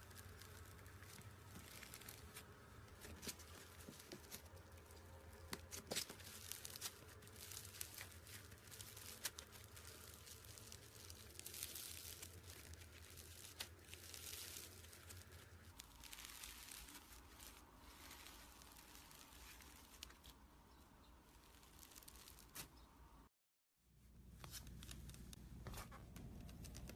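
Slime being handled by hand: a faint crackling and tearing sound with scattered small pops and clicks. The sound cuts out for a moment near the end.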